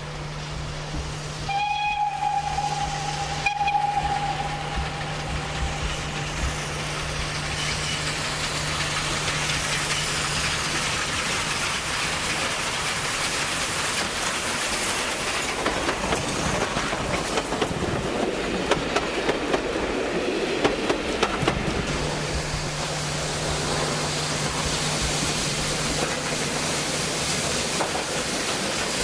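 Steam whistle blast from LMS 'Jinty' 0-6-0 tank engine 47324, starting about one and a half seconds in and fading out over a few seconds. The engine and its coaches then draw near and pass close by, growing louder, with wheels clicking over the rail joints. Near the end a second steam-hauled train runs past.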